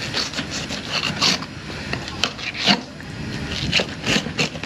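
Fillet knife scraping and cutting along the hard fin bones of an alligator gar, a string of short, irregular rasping scrapes.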